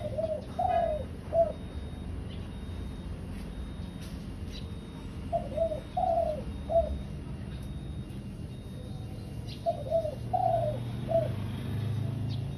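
Spotted dove cooing: three phrases about four to five seconds apart, each a few short coos around one longer, louder coo. This is the male's call to attract a female.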